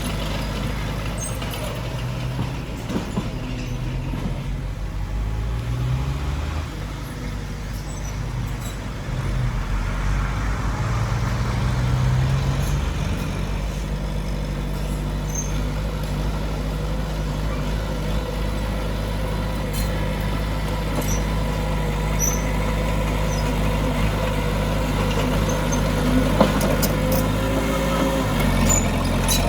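Heavy diesel engine of earthmoving machinery running, its pitch rising and falling several times as it works under varying load.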